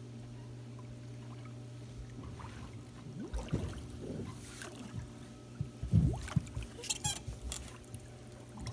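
Pool water sloshing and splashing against the side of an above-ground pool as a swimmer kicks past underwater, in irregular thumps and splashes that start about three seconds in, the loudest about halfway through, over a steady low hum.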